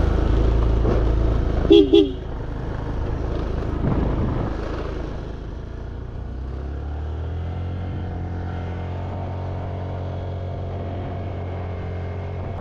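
Motor scooter pulling away and riding on, its engine running steadily under a low rumble of wind, with a quick double beep of a horn about two seconds in.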